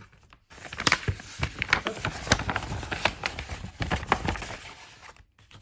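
Paper envelope rustling and crinkling as hands open it and slide out the card inside: a quick string of sharp crackles starting about half a second in and dying away near the end.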